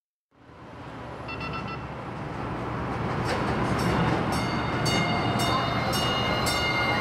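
Denver RTD light rail train pulling into a station, fading in from silence, its rumble growing louder as it comes along the platform. A quick run of four short beeps sounds about a second in, and from about three seconds in a bell rings steadily, nearly twice a second.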